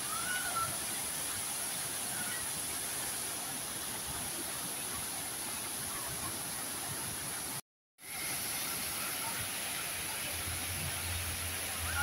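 Water falling steadily from a circular curtain fountain and spilling over small weirs into its pool, heard as an even rushing splash. The sound cuts out completely for a moment about two-thirds of the way through.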